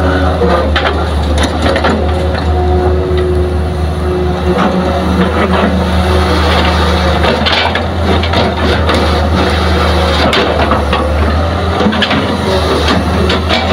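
Excavator at work: a heavy diesel engine runs at a steady drone while there are many crunching knocks and clatters, typical of the bucket digging and dumping soil and stones.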